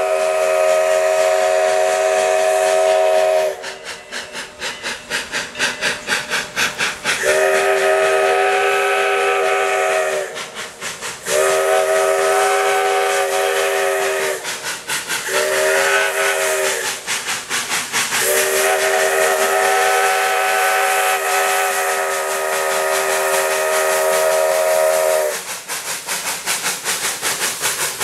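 Southern Railway 2-8-0 steam locomotive sounding its chime whistle, a chord of several notes. The blasts go long, long, long, short, long, the last four being the long-long-short-long grade-crossing signal. Between the blasts and after the last one, its exhaust chuffs in a steady beat.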